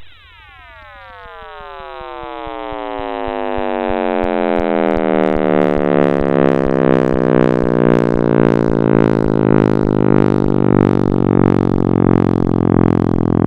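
Computer-generated sonification of space data: a deep, many-toned drone that swells up from near quiet over the first few seconds while its pitch slides steadily downward, then holds as a loud low hum.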